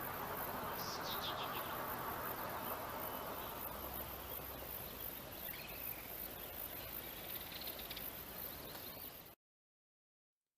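Outdoor countryside ambience: a steady hiss with a few faint high chirps of birds or insects. It cuts off suddenly about nine seconds in.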